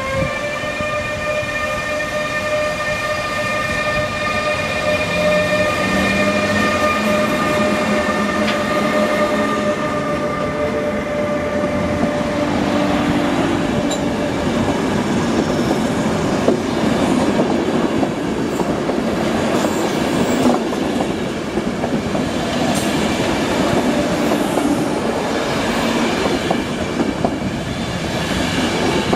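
ÖBB Taurus electric locomotive's traction converters whining in several steady, pitched tones as it pulls the train away, fading after about ten seconds. Then the passenger coaches roll past with continuous wheel rumble, rail-joint clatter and a few faint wheel squeals.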